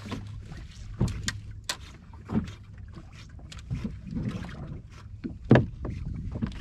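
A few sharp, irregular knocks and taps on a small fishing boat, the loudest about five and a half seconds in, over a low steady hum.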